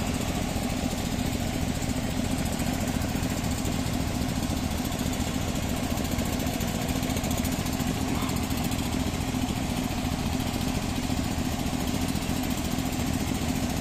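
A steady low mechanical drone with a constant hum, like an engine running at an unchanging speed; its level does not change.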